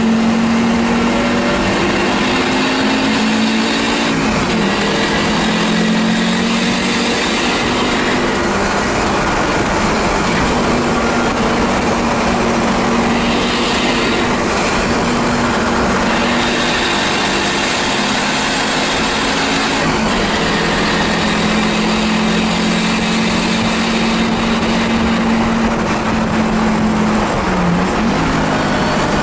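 A 1984 Audi 4000 race car's engine heard from inside its stripped, roll-caged cabin, running hard at steady high revs on track under a dense haze of cabin noise. The engine note drops and climbs back three times.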